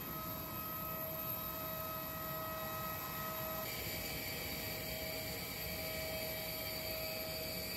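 Jet airliner turbines running on the apron: a steady high whine over a low rumble.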